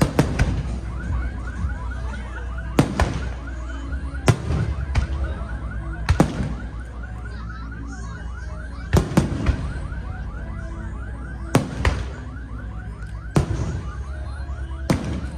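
Fireworks bursting overhead: about a dozen sharp bangs at irregular intervals. Under them runs a steady low rumble and a rapidly repeating high warbling chirp.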